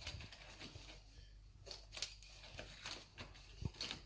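Faint, scattered clicks and rustles of pencils being handled and pulled out of a fabric pencil case.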